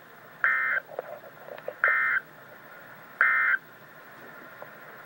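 Emergency Alert System digital data bursts over radio: three short, harsh buzzing bursts about 1.4 seconds apart. This is the end-of-message code that closes the alert.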